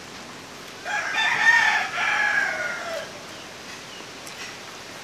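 A rooster crowing once, starting about a second in and lasting about two seconds, the call dropping in pitch at the end.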